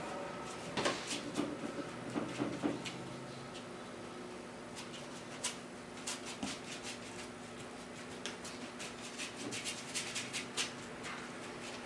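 Paintbrush scrubbing acrylic paint onto a stretched canvas: a scatter of faint short scratches and taps, busier about a second in and again near the end, over a low steady room hum.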